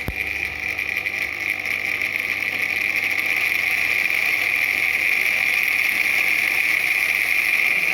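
Mixer grinder motor running fast under an SCR speed controller, a loud steady high whine that grows louder over the first few seconds as the knob is turned up, then holds at speed.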